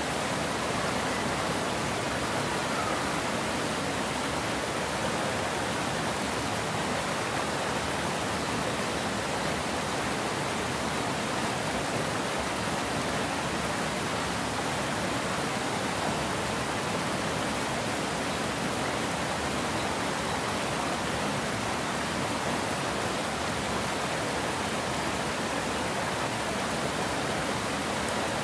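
Water pouring over a low concrete weir into churning white water below, a steady, unbroken rush.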